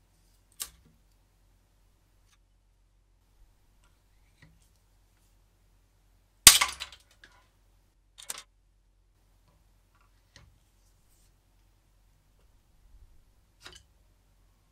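A 3D-printed plastic bar clamped in a steel vise snaps under a wrench with one loud, sharp crack about halfway through, followed by a short rattle of broken pieces. A smaller crack and rattle come a couple of seconds later, with lighter clicks and knocks from the wrench and vise near the start and the end.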